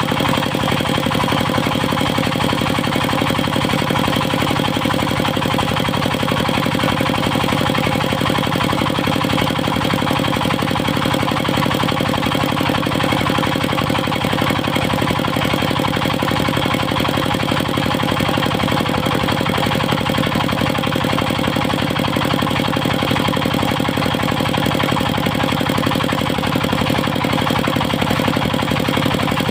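Engine of a circular sawmill running steadily at a constant speed, with an even rapid pulse and no change in pitch or loudness.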